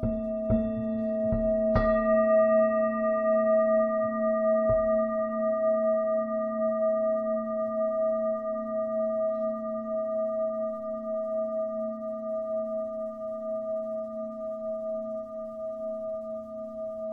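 Lingam singing bowl ringing in one long sustained tone with several overtones and a slow pulsing beat. It is struck a few times in the first seconds, hardest nearly two seconds in, after which the ring swells and then slowly dies away.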